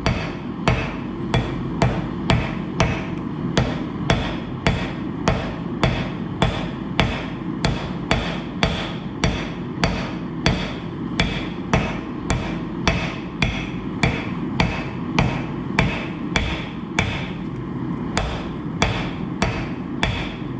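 Hand hammer forging hot steel on an anvil in a steady rhythm, about three blows a second, drawing a forge-welded billet out into a hatchet shape. A steady low rushing noise runs beneath the blows.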